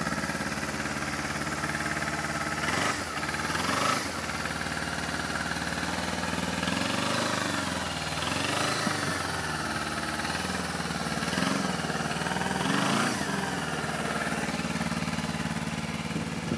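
Kawasaki Ninja 250R parallel-twin engine idling through its stock exhaust, with the throttle blipped briefly about six times so the revs rise and fall back to idle.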